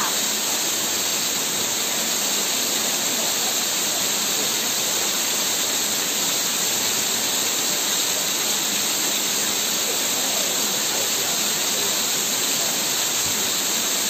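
Waterfall pouring over rock into a shallow pool: a steady, even rush of falling water.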